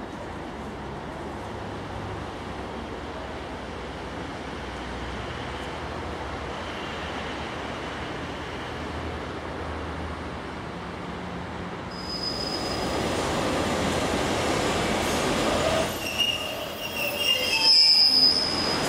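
Diesel trains at a station: first the steady low rumble of an InterCity 125 HST's Class 43 diesel power car, then, after a cut, a Class 143 Pacer railcar drawing into the platform with several high-pitched squeals from its wheels and brakes as it slows.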